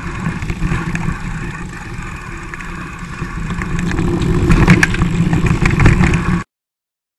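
Wind rushing over the microphone of a camera riding on a mountain bike rolling down a dirt trail, with the bike rattling over bumps. The noise gets louder and rougher about halfway in, then cuts off suddenly near the end.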